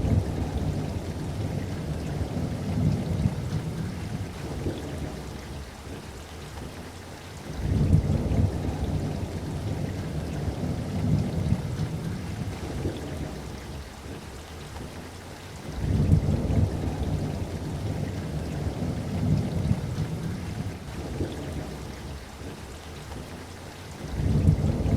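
Steady rain with rolling thunder. A deep rumble starts suddenly about every eight seconds and fades away over several seconds, four times in all.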